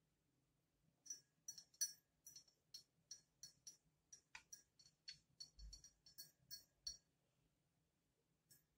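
Metal teaspoon stirring tea in a tulip-shaped Turkish tea glass, clinking against the glass wall in a quick run of light, ringing clinks, about three or four a second, that starts about a second in and stops a couple of seconds before the end.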